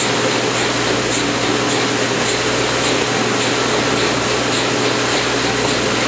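C58 steam locomotive working hard up a grade, heard from a coach of the train it hauls: a steady, loud rush and rumble of the running train, with a faint regular beat.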